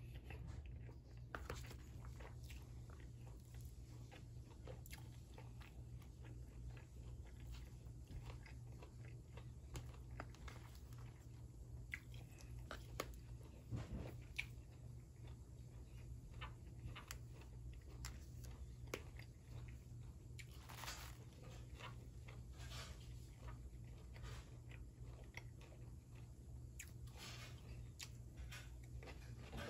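Close-miked chewing of spicy beef kapao fried rice, with scattered short clicks from mouth and utensils and a steady low hum underneath.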